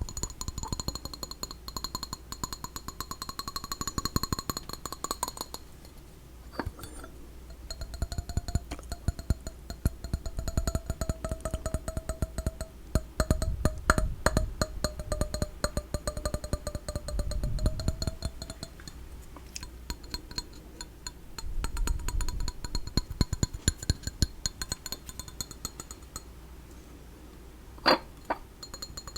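Rapid tapping and clinking on small hard objects, a fast patter of clicks with steady ringing tones under parts of it and one sharper click near the end.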